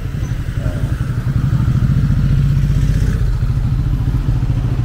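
A motorbike engine running close by, its low, fast-pulsing note getting louder about a second and a half in and holding there.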